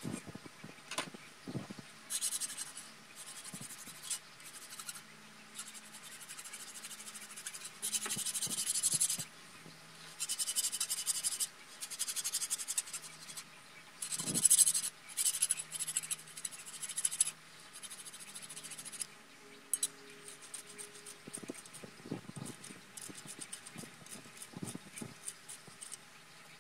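Metal file scraping along the edges inside the crankcase of a cast-iron Chevy 3.1-litre V6 block, in separate strokes of one to three seconds with short pauses and light taps between them, knocking down sharp edges as the block is prepared for rebuilding.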